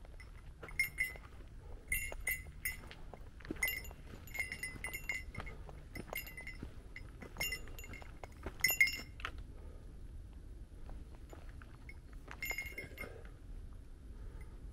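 A small metal bell carried by a hiker jingling in time with walking, a short ringing jingle about once a second; it stops about nine seconds in, with one more jingle near the end.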